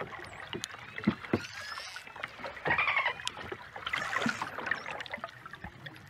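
Bottlenose dolphins splashing as they swim fast and leap from a pool, with a few short thuds as they hit the water. There are also bursts of high squeaky calls.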